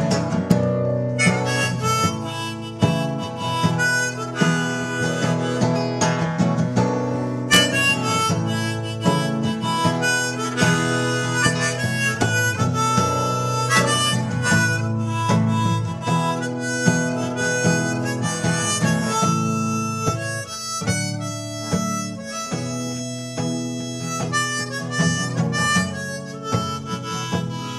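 Music: a harmonica solo over acoustic guitar, the instrumental break of a song between sung verses.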